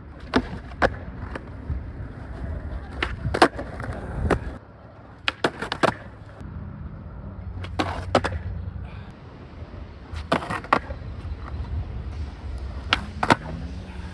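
Skateboard wheels rolling on a hard outdoor court, with sharp snaps of the board popping and landing tricks, mostly in pairs, several times over.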